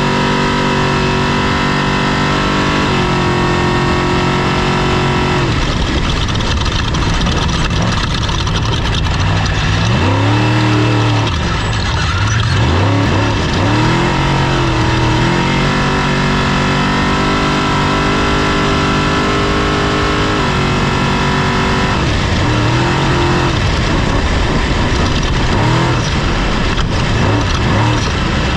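Off-road race vehicle's engine running hard under load. Its pitch holds steady, then steps abruptly up or down several times, and in the middle it swings quickly up and down with the revs.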